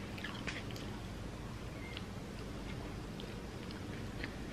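A person chewing a mouthful of milkfish and rice, with faint soft mouth clicks scattered throughout over a low steady hum.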